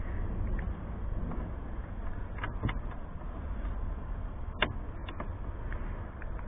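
A handful of small metallic clicks and taps as a wing-mirror securing screw is turned by hand into the van's door frame, over a steady low rumble. The sharpest click comes a little past the middle.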